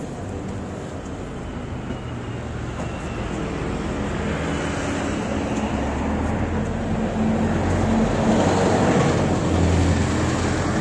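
Road traffic: a motor vehicle's engine hum and tyre noise growing steadily louder as it approaches, loudest about eight seconds in.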